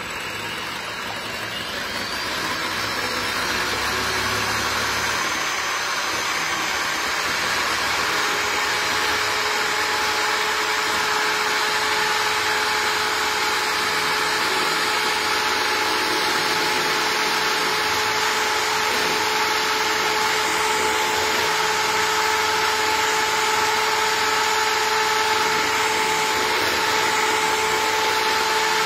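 Cuisinart electric hand mixer running steadily, its beaters whipping egg whites in a glass bowl for meringue. The sound builds over the first few seconds, and a steady hum joins it about eight seconds in.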